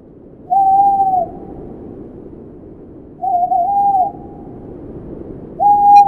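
Owl hooting: three hoots of under a second each, about two and a half seconds apart, the middle one wavering and the others dropping in pitch at the end, over a steady background hiss.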